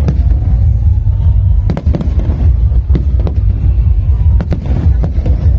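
Aerial fireworks shells bursting in a display: a string of sharp bangs at irregular intervals, several close together around the middle, over a heavy, constant low rumble, with a faint rising whistle in the first second or so.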